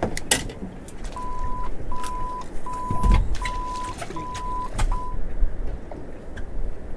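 An electronic beeper sounding six short beeps at one steady mid pitch, about three every two seconds, the last one cut short. Under it runs a low rumble with scattered sharp clicks.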